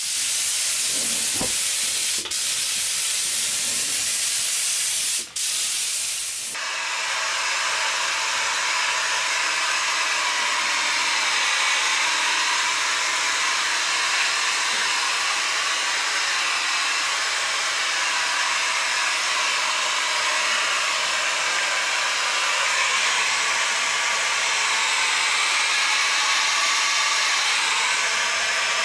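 Gravity-feed paint spray gun hissing with compressed air, cut off briefly twice, then about six seconds in an electric heat gun starts and blows steadily over the wet paint to dry it.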